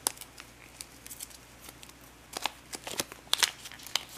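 A stapled coin holder being handled as fingers pry out its staples: light crinkling with a series of small sharp clicks, bunched more thickly in the second half.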